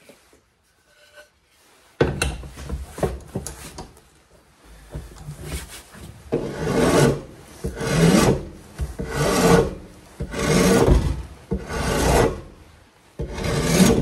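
A hand file rasping along the jigsaw-cut edge of a timber board in long strokes, smoothing out the rough cut. The strokes start about two seconds in and from about six seconds come as loud, regular strokes, roughly one every second and a half.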